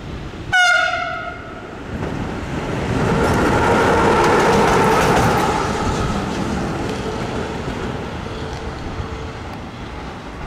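A Siemens Vectron electric locomotive sounds a short horn blast about half a second in. It then passes by running without wagons, its wheels clattering over the rails with a steady whine. The noise builds to a peak at about four to five seconds and fades as it moves away.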